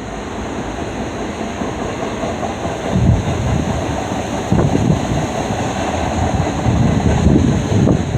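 Freight train cars rolling past on the rails in a steady rumble, with gusts of wind buffeting the microphone.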